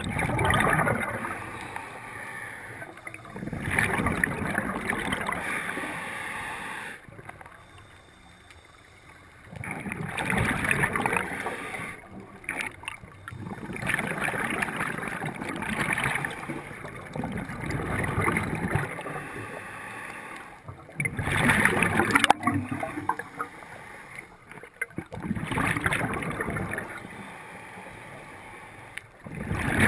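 Scuba regulator breathing underwater, heard as bubbly bursts of exhaled air and hissing breaths repeating every few seconds, with a longer pause about seven seconds in.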